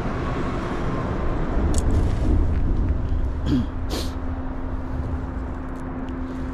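Road traffic rumbling past, swelling in the middle, with a steady low hum setting in about three and a half seconds in and a couple of small clicks.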